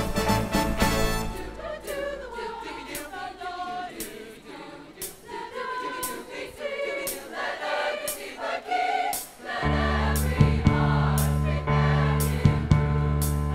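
A school choir singing a song, with crisp clicks keeping a steady beat of about two a second. A low accompaniment comes in strongly about ten seconds in and fills out the sound.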